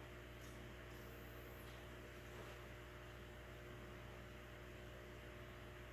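Faint steady low electrical hum under a light hiss, unchanging throughout.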